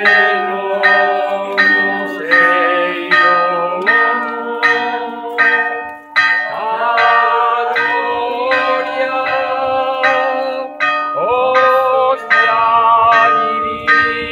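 Church bells ringing in an even pattern of strikes, about three strikes every two seconds, each leaving a ringing tone.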